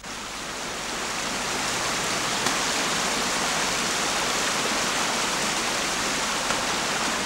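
Waterfall: falling water rushing steadily, coming in abruptly and swelling over the first couple of seconds.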